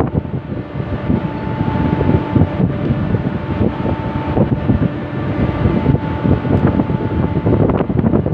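Wind buffeting the microphone on an open ship's deck, a gusty low rumble, over a faint steady machinery hum.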